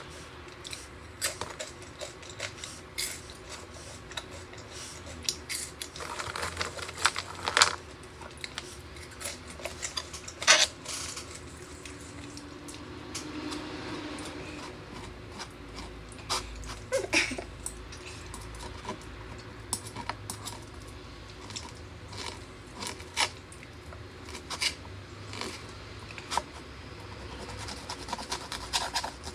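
Metal knife and fork sawing through a cooked steak on a wooden board, with irregular clicks and scrapes of the cutlery against the board.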